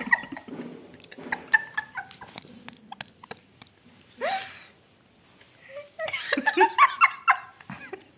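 Two women laughing together in fits: a short high burst of laughter about four seconds in, then a longer run of laughter from about six seconds in.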